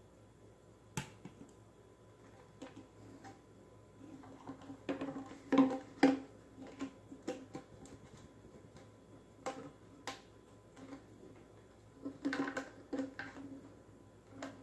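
Plastic parts of a flexible P-trap, its PVC fittings, coupling nut and corrugated hose, being handled and fitted together by hand: scattered clicks, knocks and rustles. They come in two busy spells, about five to six seconds in with two sharp clicks, and again around twelve seconds.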